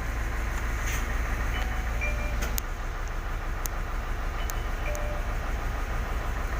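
Isuzu dump truck's diesel engine idling steadily, with a few faint clicks.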